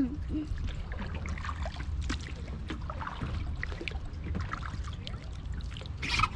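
Flowing stream water trickling and splashing around a small craft drifting on the current, with scattered small splashes over a low steady rumble and a brief louder burst near the end.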